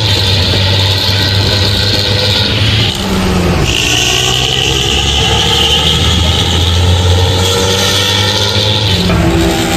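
Engine running through an aftermarket exhaust, giving a deep, snoring rumble with a tinny, ringing edge on top. The note dips and changes about three seconds in and shifts again near the end.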